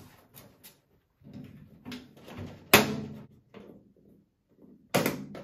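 Collapsible aluminium dog crate being handled: soft scraping and rattling, then a sharp metal clack about three seconds in and another near the end as the crate's clamps are worked.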